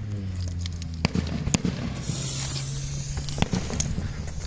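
A 500-gram 32-shot consumer fireworks cake firing: sharp shots bang out at uneven intervals, four loud ones, with a high hiss between the second and third shots.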